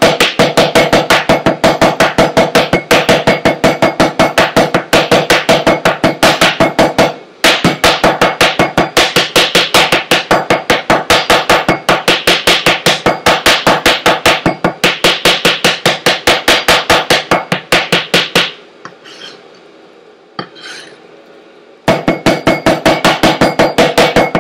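Chinese cleaver chopping sliced pork on a plastic cutting board, mincing it by hand: fast, even strikes at about five or six a second. The strikes break off briefly about seven seconds in, and stop for about three seconds near the end before starting again.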